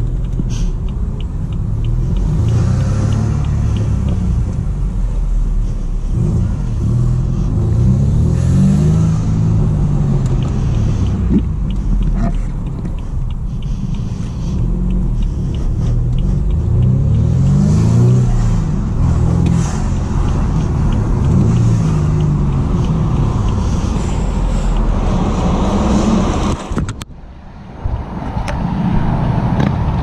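Straight-six car engine with a valved exhaust running and revving, its pitch rising and falling several times. Near the end the sound briefly drops away.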